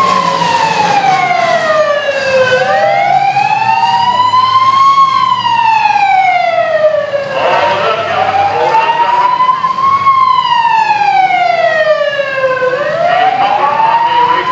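A siren wailing, its pitch sliding slowly down and back up about every five seconds, over a steady background din.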